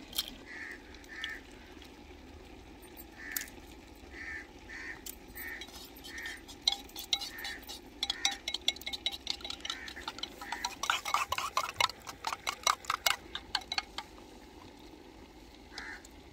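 Steel spoon beating raw eggs in a clay bowl: a fast run of clinking strokes against the bowl from about a third of the way in until near the end. Before that, a bird calls in short notes about once a second.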